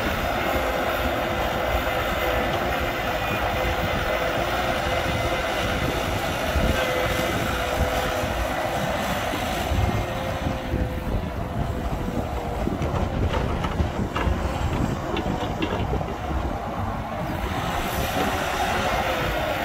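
Cat hydraulic excavator's diesel engine running under working load, with a steady hydraulic whine, as it digs and swings. The engine eases off for several seconds around the middle, while a few faint knocks sound.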